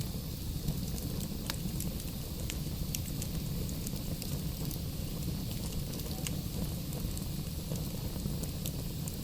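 Wood fire burning in a fireplace: a steady low rumble of the flames with scattered sharp crackles and pops of the burning logs.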